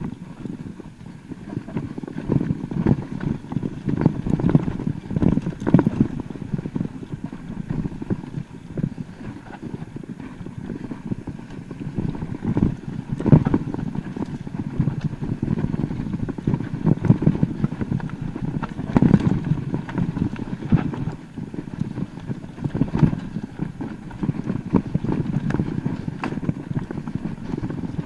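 Mountain bike running down a rough enduro trail: continuous clattering and knocking of the tyres and frame over rocks and roots, with louder jolts now and then.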